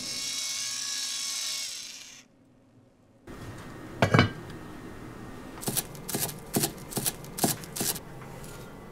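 Cast-iron rice pot sizzling on the hob, a steady hiss that stops after about two seconds. A few seconds in its lid is set on with one loud clank. A quick run of about ten sharp knocks follows.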